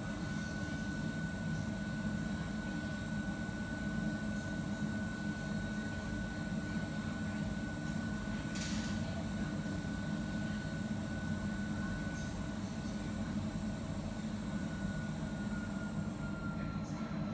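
Steady low hum of commercial-kitchen machinery, with a thin high whine that sags slightly in pitch near the end. A brief hiss comes about nine seconds in.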